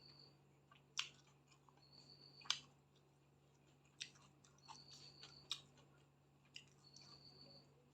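Quiet eating of chicken and rice: chewing with sharp mouth clicks and smacks about every second or so. A short high tone repeats about every two and a half seconds over a low steady hum.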